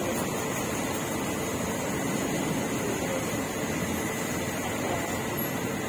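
Steady background din with no distinct single event, like traffic or a fan running at a street-food stall.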